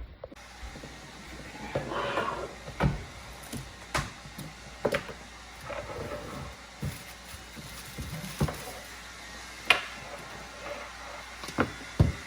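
Scattered knocks and clicks of things being handled and set down, a dozen or so sharp ones a second or so apart, with a little rustling between them.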